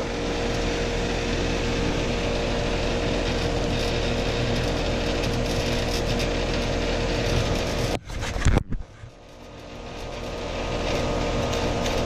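Carrier heat pump outdoor unit running steadily, its compressor and condenser fan giving a constant noise with a steady tone through it. About eight seconds in come a few knocks and a sudden drop in the sound, which then builds back up over two or three seconds.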